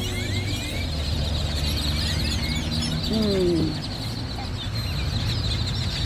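A large roosting flock of great-tailed grackles singing together on power lines: a dense chorus of squeaky, rising and falling whistles and chatter, over a steady low traffic rumble.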